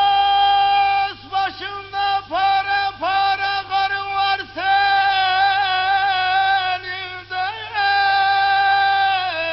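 A man singing a Turkish bozlak in a high, full voice: a long held note, then short broken melismatic turns from about a second in, then more long held notes with wavering ornaments.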